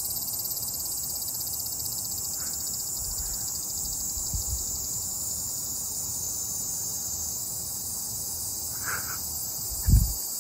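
A steady, high-pitched chorus of insects chirring throughout, with one short low thump near the end.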